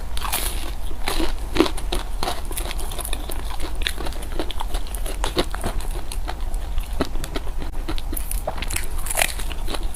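Close-miked eating: biting and chewing food with many quick irregular clicks and small crunches, over a steady low hum.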